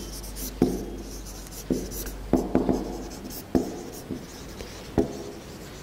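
Dry-erase marker writing on a whiteboard: a run of short, irregular strokes with a few sharp taps of the tip on the board.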